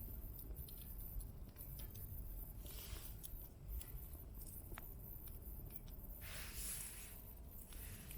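Small wood fire crackling with a few faint pops, over a steady low rumble.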